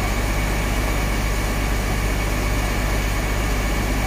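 Heavy engine of the machinery working the levee breach, running steadily with a constant low drone.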